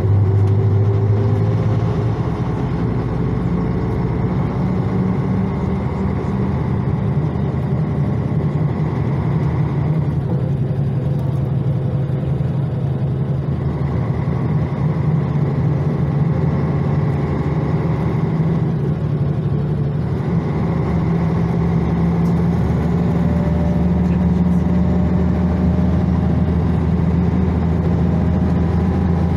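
Karosa LC735.20 coach's diesel engine running under way, heard from inside the passenger cabin along with road noise. The engine note climbs slowly over the last several seconds.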